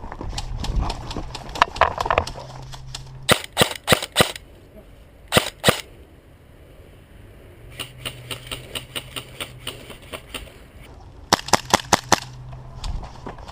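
Airsoft electric rifles firing BBs in short bursts of sharp cracks: a handful of shots a few seconds in, two more soon after, a longer run of quicker, quieter shots in the middle, and a last burst of loud shots near the end.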